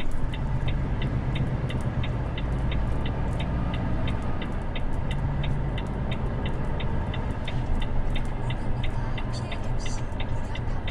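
Turn-signal indicator ticking steadily inside a Volvo truck's cab, about three ticks a second, over the steady low drone of the truck's engine at low speed.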